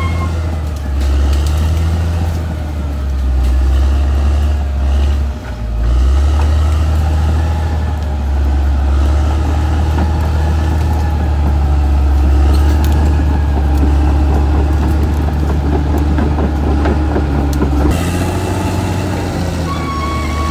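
Caterpillar D6R XL bulldozer working, its diesel engine running steadily under load with track clatter, dropping briefly about five seconds in. Near the end the sound changes abruptly and a steady high whine comes in.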